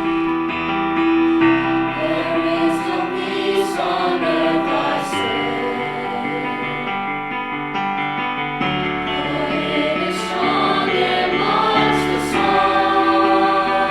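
A choir singing with instrumental accompaniment, long held notes and a few sung consonants.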